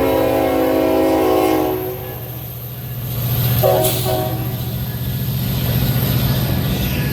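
Train horn sounding a held chord of several tones that cuts off about two seconds in, then a short second blast about three and a half seconds in, over the steady low rumble of the passing train.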